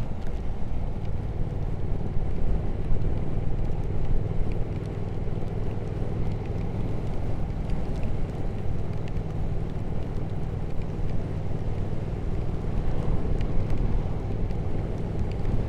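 Triumph Speed Twin 1200's parallel-twin engine running at a steady cruise, with wind and road noise rushing over the rider's microphone.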